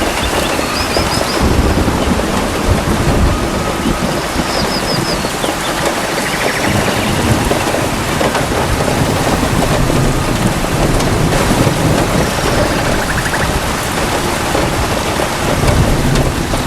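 Steady rain falling, with low rumbles of thunder that swell and fade several times.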